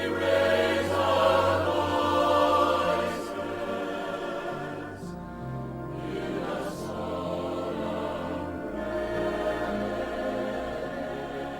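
Slow choral music: a choir singing long held chords over sustained low notes that shift every few seconds.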